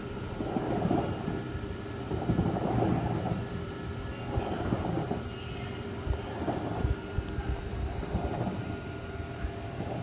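Tank water heater making irregular crunchy, crackling noises that swell and fade about every second, over a faint steady hum.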